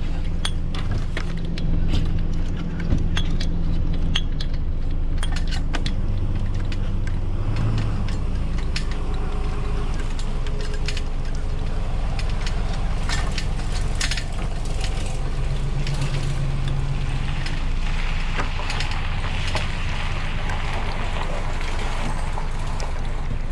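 Scattered sharp metallic clicks and rattles of sailboat rigging hardware being handled, over a steady low engine hum from a vehicle idling.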